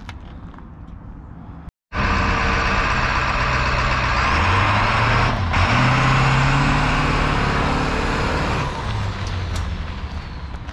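Short school bus engine revving hard as the bus pulls away across gravel, its tyres churning the gravel in a burnout attempt. After a quieter opening and a sudden cut, the engine and tyre noise come in loud about two seconds in, the engine pitch rises around the middle, and the noise eases off near the end as the bus moves away.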